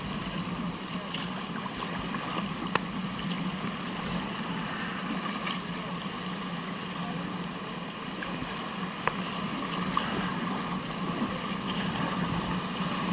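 Steady rush of river water, with a few short sharp knocks.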